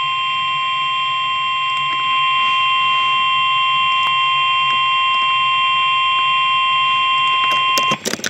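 NOAA Weather Radio warning alarm tone: a loud, steady single tone of about 1050 Hz, signalling that a warning broadcast follows, here a severe thunderstorm warning. It steps up slightly in level about two seconds in and cuts off suddenly near the end, with a few clicks.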